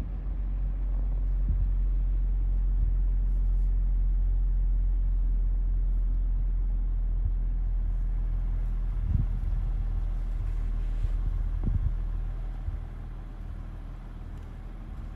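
Land Rover Defender 110's engine running steadily, a deep low rumble heard inside the cabin, easing off somewhat near the end. A couple of short knocks sound over it in the second half.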